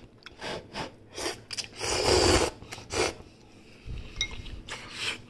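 Chopsticks stirring and lifting instant ramen noodles in a bowl of broth, tapping and scraping against the bowl, with a short ringing clink about four seconds in.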